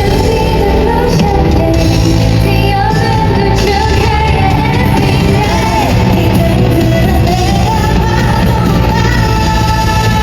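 Live K-pop song played loud over a concert sound system, with women singing and some shouting over a steady beat and bass line.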